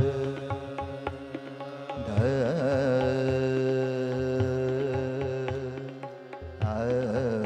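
Live qawwali ensemble music: a bamboo flute (bansuri) plays a melody with wavering pitch bends over a sustained harmonium, with hand-drum strokes from dholak and tabla.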